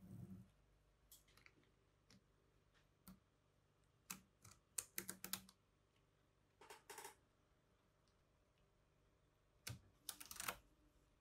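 Faint, scattered clicks and taps from small magnetic balls knocking together and plastic cards touching the ball model. They come in a few short clusters, one near the middle and one near the end.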